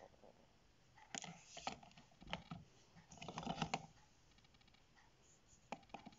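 Plastic Uni Posca paint markers clicking and knocking against each other as they are handled and moved in their pot. The clicks come in short clusters, the busiest a little past the middle, with a couple more near the end.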